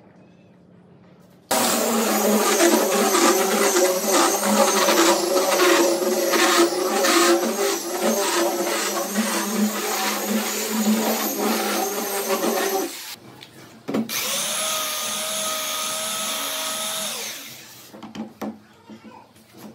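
Handheld electric belt sander sanding a wooden tabletop, starting abruptly, its motor and belt noise surging with each pass. After a short stop it runs again steadily with a clear whine, off the wood, and stops near the end.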